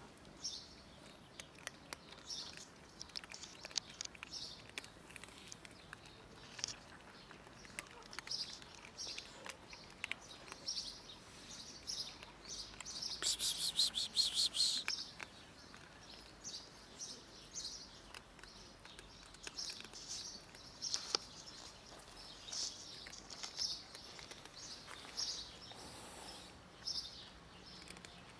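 Small birds chirping repeatedly, with a louder, longer trill about halfway through, over the close crunching and clicking of kittens eating dry kibble from a plastic tray.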